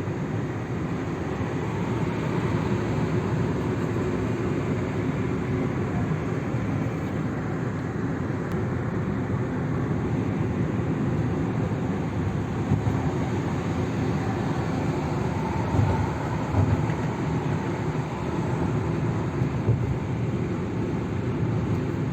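Steady low rumble of a moving vehicle, with a few brief louder bumps in the second half.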